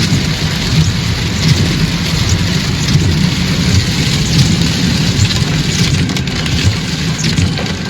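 A car driving in heavy rain: a steady engine and road rumble with rain hissing and pattering on the car.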